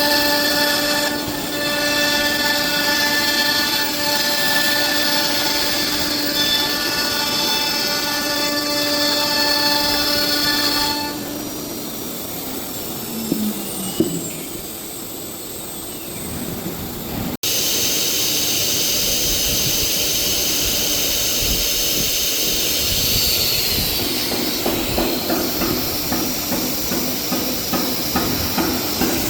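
CNC router running: a steady high whine with a hiss for about the first eleven seconds, then the whine stops. After a brief dropout a noisier steady hiss follows, with quick regular pulses near the end.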